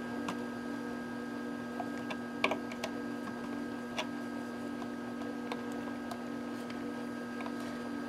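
A few light, irregular metallic clicks as a plier wrench works the nut of a BNC connector on a metal chassis, over a steady hum.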